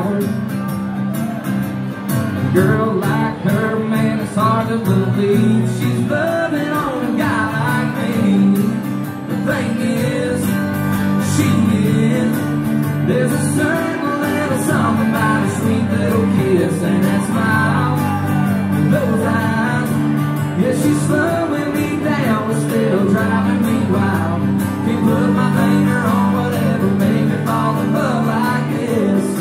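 Live country music from an acoustic duo: two acoustic guitars strummed and picked while a man sings, amplified through the venue's sound system.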